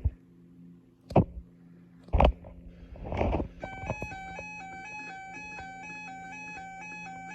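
Three loud thumps about a second apart, then, about three and a half seconds in, a simple electronic melody of clean, stepped beeping tones starts and plays on steadily.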